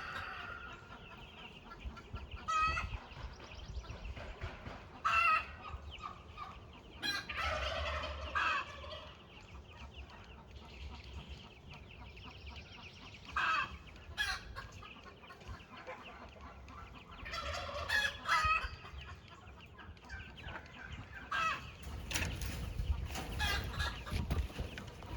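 Chickens clucking, short calls every few seconds with a longer call about seven to eight seconds in, over a low rumble.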